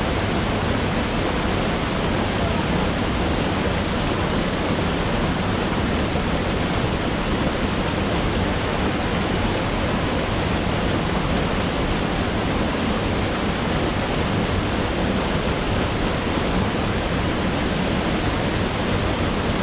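Waterfall pouring: a steady, unbroken rushing of falling water, loud and even throughout.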